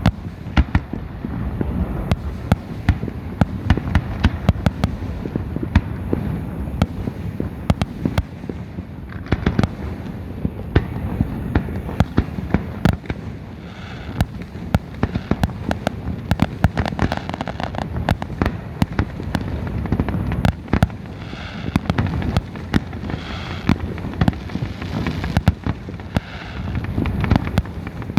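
Fireworks going off in quick succession: many sharp bangs and cracks, one after another, over a continuous low rumble.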